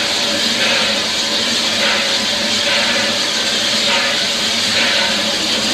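Steam locomotive Reno's 4-4-0 engine heard from inside the cab while running: a loud, steady hiss and rumble of steam and fire, with a beat that comes back about once a second.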